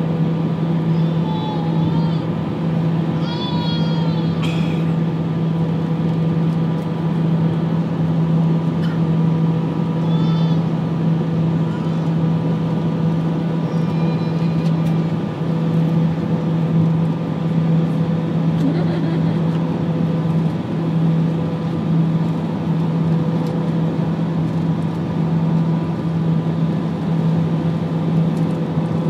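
Airbus A319 cabin noise heard over the wing-mounted jet engine during the landing approach: a steady engine drone and rushing air with a low hum.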